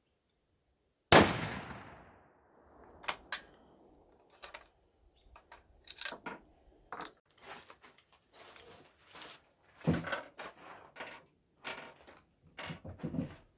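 A single shot from a .45-70 rifle on a Siamese Mauser action about a second in, loud and dying away over about a second, followed by a string of smaller clicks and knocks.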